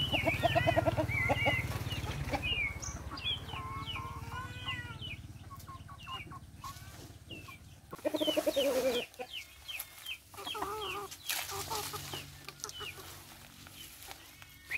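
Free-ranging chickens clucking and calling, with many short chirps from small birds; the loudest call comes about eight seconds in.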